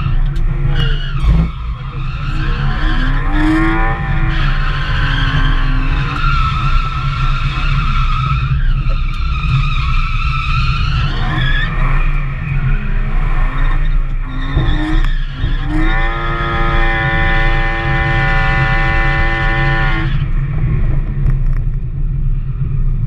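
BMW E36 drift car's engine heard from inside the cabin, revving up and down through a series of drifts with tyres squealing and skidding. For about four seconds past the middle the engine is held at steady high revs before dropping away.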